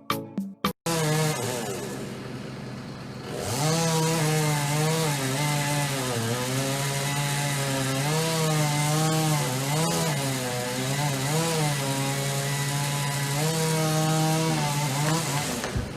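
Chainsaw cutting wood. It comes in about a second in and revs up a few seconds later, then holds high revs with its pitch repeatedly dipping and recovering as the chain bogs down in the cut. It drops away near the end.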